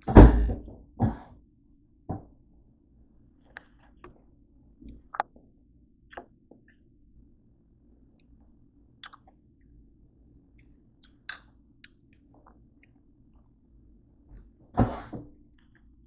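A person eating with a fork: a few loud thumps, the loudest just at the start, two more in the next couple of seconds and another near the end, with small clicks of the fork on the plate and chewing in between.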